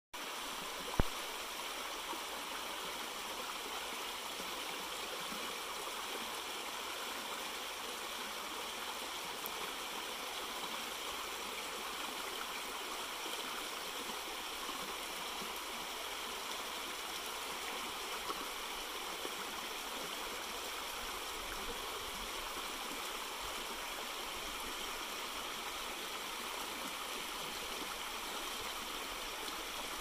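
Shallow brook babbling over stones and a small riffle: a steady, even rush of running water. A single sharp click about a second in.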